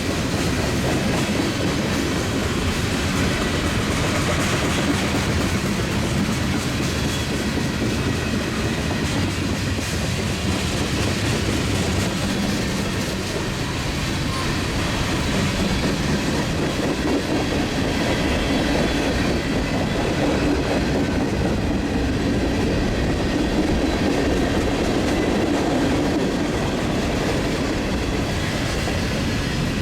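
Railroad cars rolling past close by: a steady rumble with the clatter of steel wheels on the rails.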